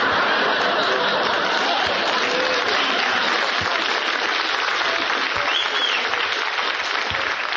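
Studio audience applauding steadily after a joke's punchline, heard through a band-limited old radio recording.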